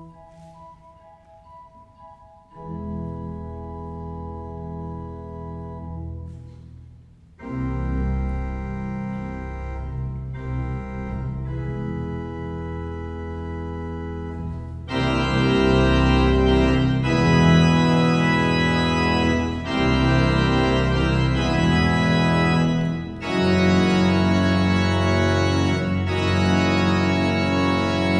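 Organ playing sustained chords in a capriccio, starting softly and growing louder in steps, with a fuller, loud registration from about halfway. Short breaks between phrases, and a chord released near the end.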